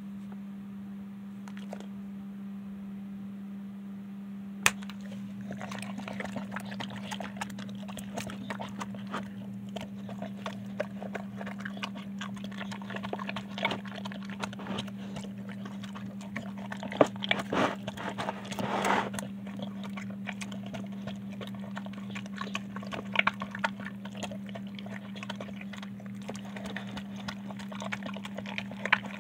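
Dog eating a wet meal of rice, chicken and beans from its bowl: rapid irregular wet smacking and chewing with knocks against the bowl, starting after a sharp knock about five seconds in. A steady low hum lies underneath.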